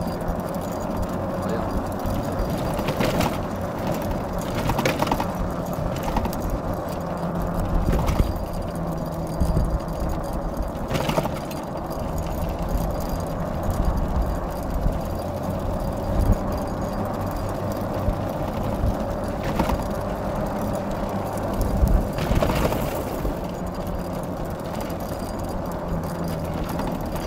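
Motorless ATV being pulled by a running husky team: the steady rolling rumble and rattle of its tyres and frame, with a few sharp knocks along the way.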